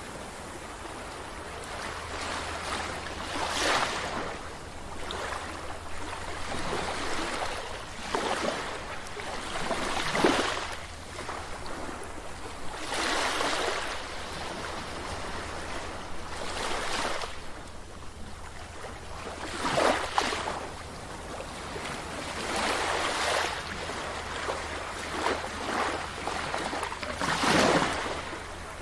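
Sea waves breaking and washing up a beach, each surge rising and falling every few seconds over a steady wash of surf.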